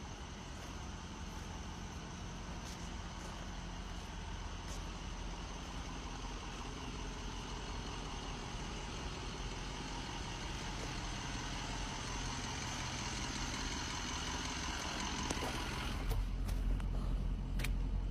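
Ambulance truck's engine idling steadily, growing slowly louder. About 16 s in, a heavier low rumble sets in, with a few sharp clicks near the end.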